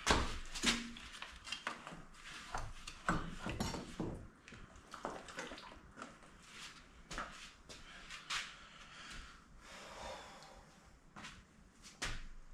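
Irregular clinks, knocks and rattles of metal parts and hand tools being handled on a partly stripped dirt bike engine and frame.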